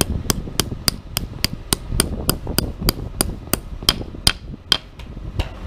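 Steel claw hammer tapping a Kryptonite Stronghold ground anchor's metal sleeve down into a drilled hole in concrete: a steady run of sharp metal-on-metal strikes, about three or four a second, some ringing, stopping shortly before the end.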